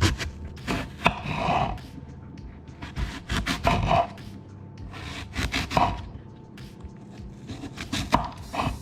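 Knife cutting apples on a wooden cutting board: several knocks of the blade on the board, mixed with scraping and the crunch of apple flesh being sliced.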